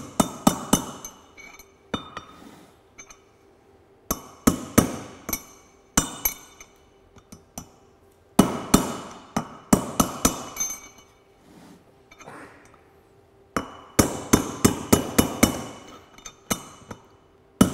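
Hammer driving a new wheel bearing track (outer race) into a Land Rover hub, struck through the old bearing track as a drift: runs of quick, ringing metal-on-metal taps, broken by short pauses.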